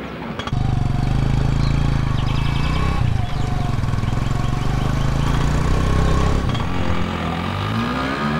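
Auto rickshaw engine running close by, a steady low pulsing sound that starts suddenly about half a second in and eases off near the end.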